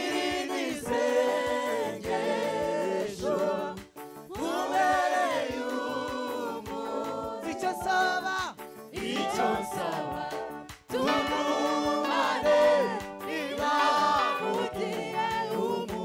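Choir singing a gospel worship song, several voices together in sustained phrases with a wavering vibrato.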